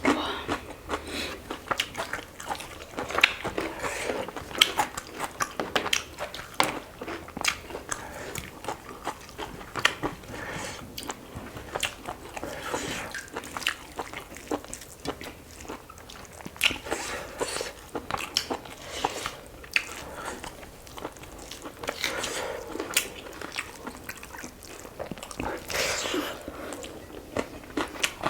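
Close-miked chewing and crunching of food in a mukbang meal of chicken curry with rice: irregular wet mouth clicks and crackles of biting and chewing, with no talking.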